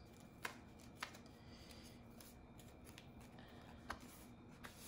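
Paper banknotes rustling faintly as a handful of bills is handled and slipped into a paper envelope, with a few brief crisp flicks of paper.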